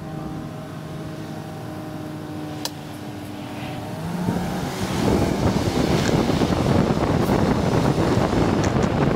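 Vehicle engine idling with a steady hum and a single click, then rising in pitch as it pulls away about four seconds in, followed by a loud, steady rush of wind and road noise on the microphone once under way.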